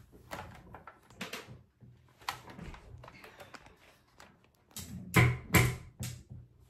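Small clicks and knocks of objects being handled and set down, with two louder knocks in quick succession about five seconds in.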